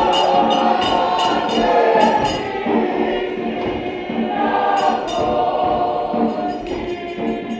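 Church choir singing a Xhosa hymn in harmony, accompanied by a steady beat of sharp percussive hits that drops out after about two seconds and returns briefly later. The singing grows softer near the end.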